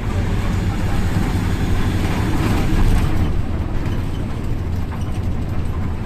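Large diesel bus engine idling with a steady low rumble, swelling in noise for a moment about two to three seconds in.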